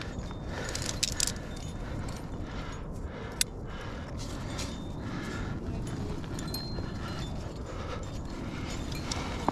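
Climbing hardware jingling and clinking: carabiners and protection gear on a trad climber's harness knock together in short, irregular clicks as the climber moves up a crack, with one sharp metallic click about three and a half seconds in. A steady low rumble lies under it.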